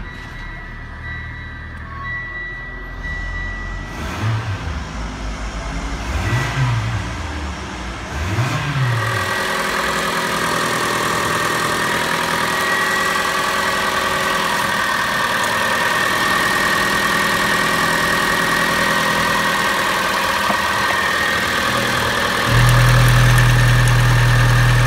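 Peugeot 4008's 2.0-litre Mitsubishi 4B11 inline-four petrol engine running at idle, blipped three times with the revs rising and falling, then heard steadily up close at the engine with the oil filler cap off. A loud low hum comes in near the end.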